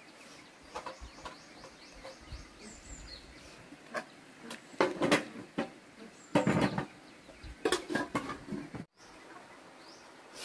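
Aluminium cooking pots and lids clattering as they are handled and set down, in three short bunches of knocks and scrapes. Faint small-bird chirps sound in the background.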